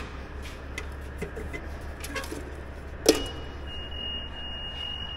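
A switch clicks about three seconds in, and the M1070 HET's warning buzzer comes on as one steady high beep: the low-air-pressure warning that sounds when the electrical power is switched on with no air in the brake system.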